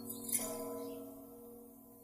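Church bells ringing: one bell strike about a third of a second in, its several tones ringing on and slowly dying away.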